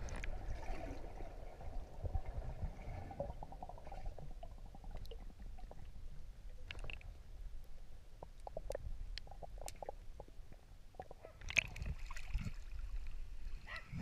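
Water heard from under the surface of a shallow spring-fed pool: a muffled low rumble with scattered faint clicks and gurgles. It grows louder and splashier near the end.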